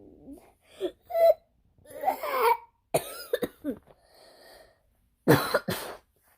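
A person making a string of short, odd vocal noises with mouth and throat, some sliding in pitch, with two loud cough-like bursts about five seconds in.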